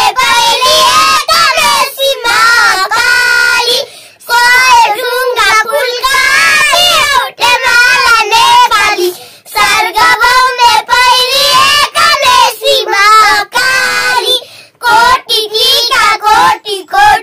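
Three young girls singing a song together, unaccompanied, in loud voices with short breaks for breath.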